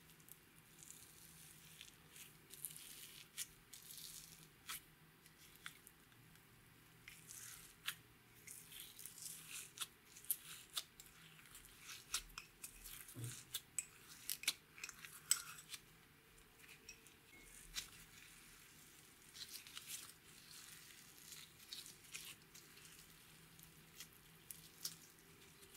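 Clear slime mixed with loose green glitter being pressed and kneaded by fingers, giving irregular sticky crackles, clicks and small pops; near the end the slime is pulled and stretched.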